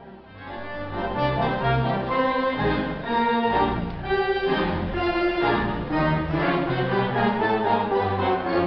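Mighty Wurlitzer theatre pipe organ playing a lively tune with full, orchestral-sounding chords over a bass line, rising to full volume over the first second.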